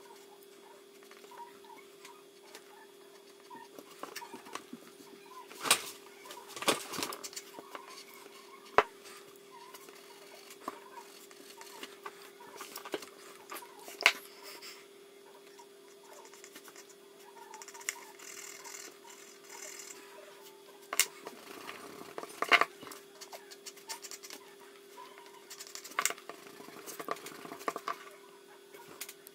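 Pencil scratching and tapping on paper during sketching, with scattered sharp clicks, over a steady low hum.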